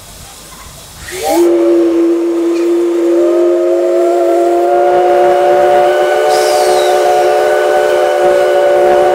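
Steam locomotive C56 160's whistle blowing one long blast. It comes in about a second in with a quick rise in pitch, then holds a steady chord of several notes, which grows fuller about three seconds in, and is still sounding at the end.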